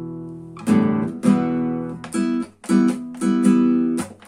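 Acoustic guitar strumming chords: a held chord rings and fades, then a strummed pattern starts a little under a second in, with about seven strokes.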